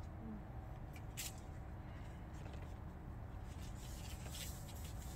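Disposable plates and their wrapping rustling and crinkling as gloved hands separate them, in a few short crisp bursts about a second in and again toward the end.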